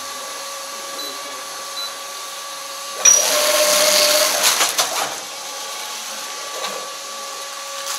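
Automatic vegetable flow-wrapping machine running with a steady hum and thin whine as it wraps bunches of greens in plastic film. About three seconds in, a loud hiss lasts about two seconds and ends in a few sharp clicks.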